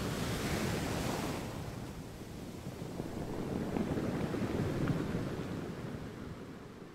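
Ocean surf washing onto a beach, a steady rush that swells twice and fades out near the end.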